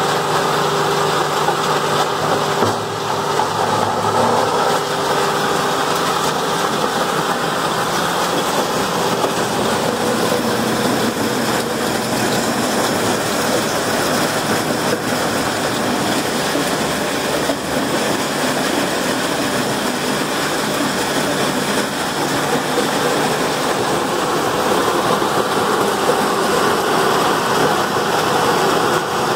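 Packer 750 horizontal grinder running while grinding wood, its diesel engine and grinding mill making a loud, steady mechanical din as the discharge conveyor throws out chips.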